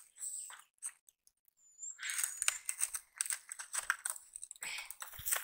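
Irregular rustling and crackling of dry wood and palm leaves, starting about two seconds in after a brief lull, as a climber grips and steps on a ladder of dry branches lashed to a palmyra palm trunk.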